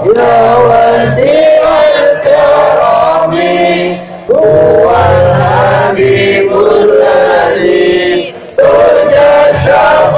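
Sholawat, Islamic devotional singing, played loud over a PA with many voices singing together and music behind. It comes in three long sung phrases, broken by short pauses about four and eight and a half seconds in.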